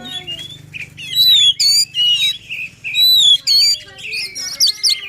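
Oriental magpie-robin (kacer) singing in excited, aggressive full song: loud whistled phrases that swoop up and down in pitch, then a fast run of chattering notes near the end.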